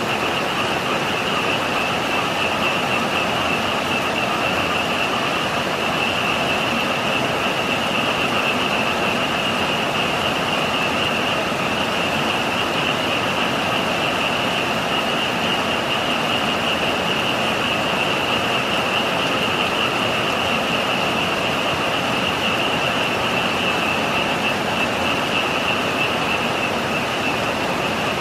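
Heavy typhoon rain rushing steadily, with a dense chorus of frogs calling continuously over it as one high, unbroken trilling band and a lower, weaker one.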